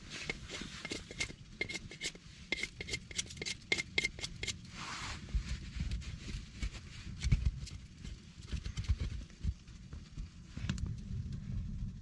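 Knife shaving split dry firewood by hand, a fast run of short scraping cuts at about four a second, one longer scrape near five seconds in, then only occasional cuts.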